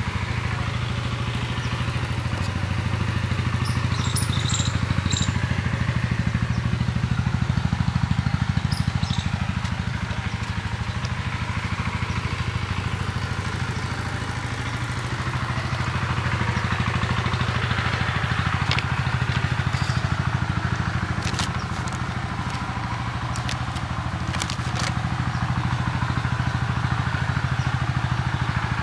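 A steady engine running, with a few sharp clicks in the second half.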